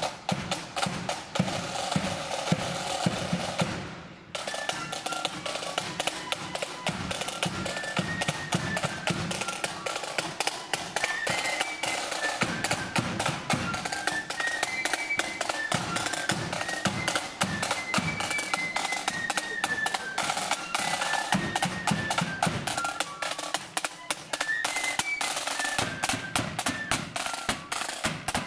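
Marching flute band playing: rapid snare drumming with bass drum beats, then, after a brief break about four seconds in, flutes carry a high melody over the drums.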